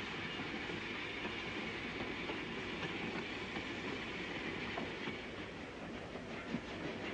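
Steady running noise of a moving passenger train, heard from inside a compartment.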